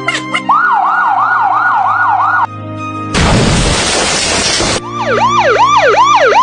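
A siren yelping in fast repeated pitch sweeps, about two and a half a second, over steady background music. It is cut in the middle by about a second and a half of loud hiss-like noise, then resumes.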